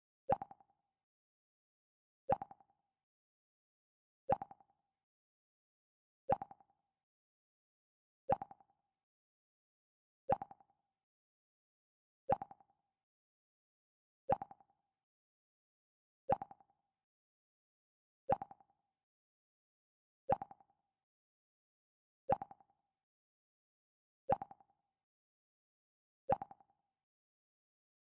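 The Mac OS X "Pluck" alert sound: a short plucked tone that dies away quickly, repeated about every two seconds, fourteen times.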